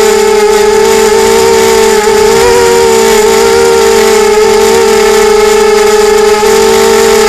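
Drone's electric motors and propellers giving a loud, steady whine with several overtones. The pitch wavers slightly in the middle as the throttle shifts, then settles.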